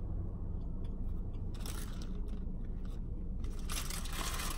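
Close-up chewing of fast food, with crunching in a few short bursts, the longest near the end, over a steady low hum.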